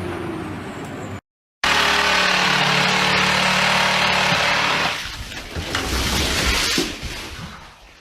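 Loud engine noise from heavy machinery, cut off by a moment of dead silence a little over a second in. It comes back louder and harsher, then turns to a low rumble and fades near the end.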